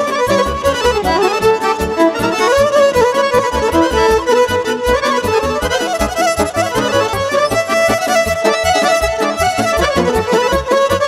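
Instrumental break in Romanian party music: a Roland digital accordion plays the melody with violin over keyboard backing and a steady beat.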